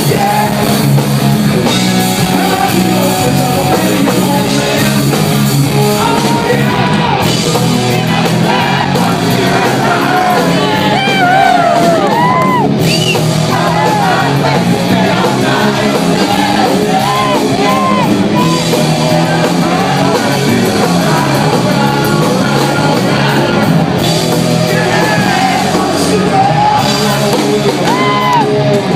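Live rock band playing loud in a large hall, with a sung lead vocal in wavering held notes over the band, and some shouting.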